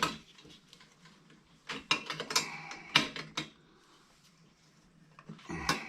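Metal clicking and clinking of a wrench and the lantern's steel parts being handled during the disassembly of a Coleman 220F lantern, in short clusters about two seconds in and again near the end.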